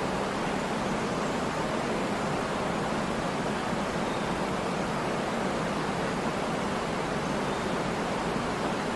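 Waterfall: a steady, unbroken rush of falling water, with no separate splashes standing out.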